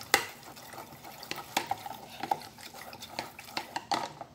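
Chopsticks stirring starch and a little liquid in a plastic food container, clicking and scraping against its bottom and sides in quick, irregular strokes.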